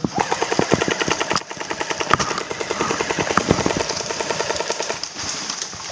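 Airsoft electric guns firing on full auto: a rapid, even rattle of shots, with a brief break about a second and a half in and a few louder single cracks.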